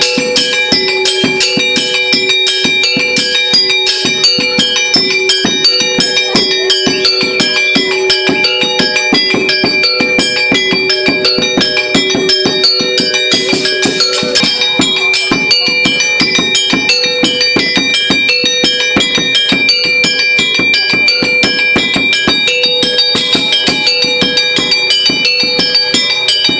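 Music with a fast, steady beat of struck, bell-like notes over held tones, running without a break.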